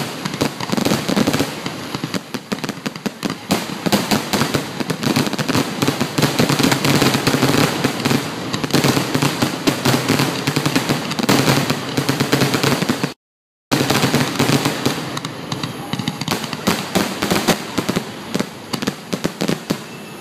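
Aerial fireworks shells bursting in a dense, rapid barrage of bangs and crackle. The recording cuts out completely for about half a second some two-thirds of the way through. After that the bursts come sparser and more spaced out.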